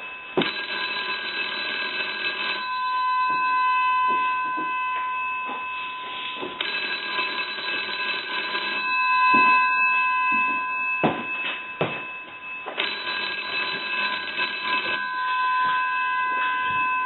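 GPO P&T 606 rotary dial desk telephone's bell ringing in three bursts of about two seconds each, roughly four seconds apart, as a test ring after repair and conversion. A steady high tone sounds underneath.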